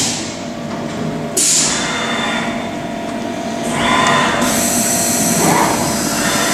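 CNC machining centre drilling an aluminium disc under flood coolant: steady machine whine and coolant spray hiss. The noise shifts abruptly twice, and a whine rises in pitch about five and a half seconds in.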